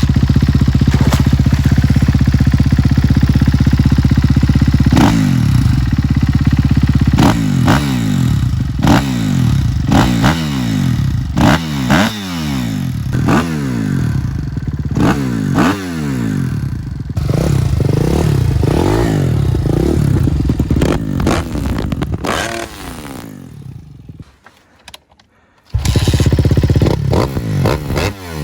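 Kawasaki KX250F four-stroke single-cylinder motocross engine through an FMF aftermarket exhaust. It idles steadily, then is blipped over and over, about once a second, each rev rising and dropping back. Later the revving turns irregular and the sound dies away for a moment, then it is running steadily again near the end.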